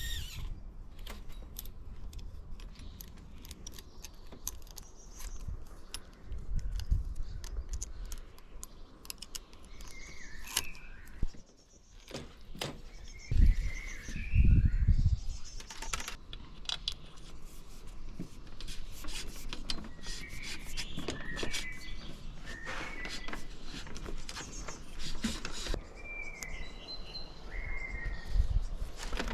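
Many light metallic clicks and rattles, with short bird chirps now and then and a couple of low thumps about halfway through.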